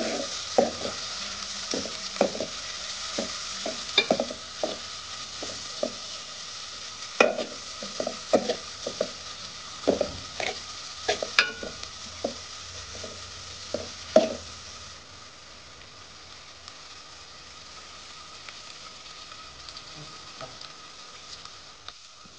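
Sliced onions sizzling in hot oil in an aluminium pot, with a steel spoon stirring them and knocking against the pot. The knocks stop about two-thirds of the way through, leaving just the sizzle, a little quieter.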